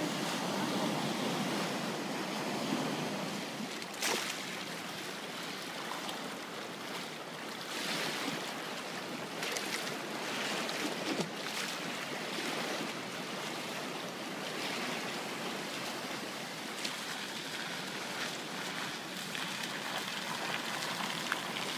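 Steady rushing of a swollen, muddy river in flood pouring through rapids and standing waves.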